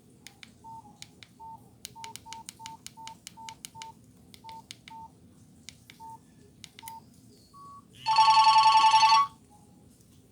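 Keys on a Nokia 6085 mobile phone pressed one after another, each click with a short keypad beep, about a dozen over seven seconds. About eight seconds in, a loud, buzzy, rapidly pulsing tone plays from the phone's speaker for about a second.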